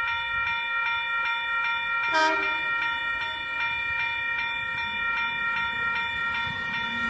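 Electric intercity train approaching to pass through the station without stopping: a steady high whine with faint regular ticking, and a short higher sound about two seconds in.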